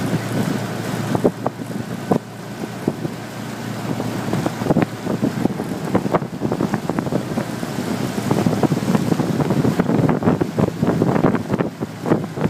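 A motorboat running, heard from on board, with wind buffeting the microphone. Irregular sharp clicks and knocks come throughout and grow more frequent near the end.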